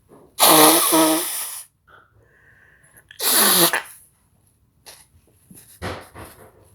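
A man sneezes twice, hard, set off by chhikni sneezing powder. The first sneeze starts with a voiced 'ah' catch and the second ends with a cry that falls in pitch. A quieter breathy sound follows near the end.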